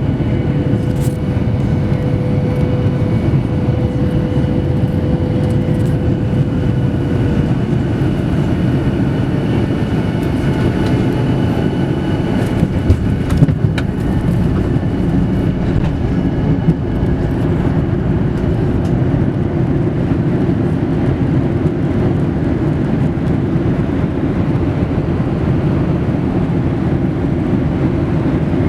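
Cabin noise aboard a Boeing 737-800: a steady low rumble from its CFM56 engines and the airflow, with faint engine tones that fade away over the first several seconds. A few sharp knocks come about halfway through.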